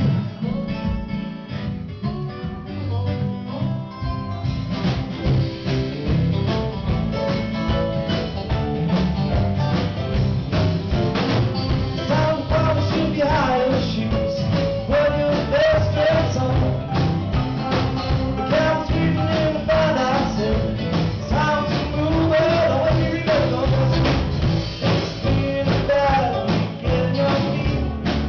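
Live band playing a song on acoustic guitar, electric guitar, bass, keyboard and drums. It starts sparse and fills out after a few seconds, and a male lead vocal comes in about halfway through.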